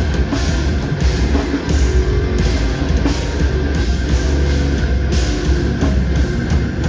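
A heavy rock band playing loud and live: distorted electric guitar, bass and drums, with repeated cymbal crashes over a heavy low end.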